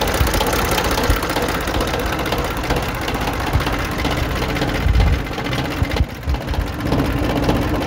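Ford 1910 tractor's three-cylinder diesel engine running, heard up close, with a steady clatter.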